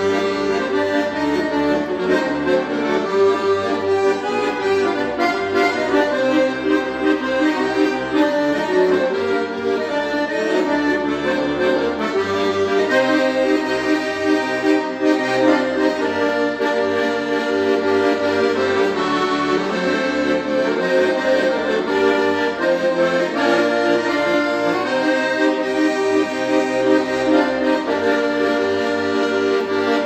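Weltmeister button accordion (bayan) playing a tune, with several notes sounding together as melody over accompaniment, unbroken throughout.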